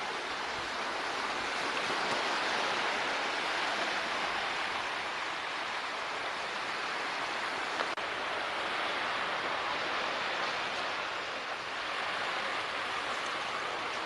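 Surf washing on a sandy beach: a steady, even hiss of breaking waves with no let-up.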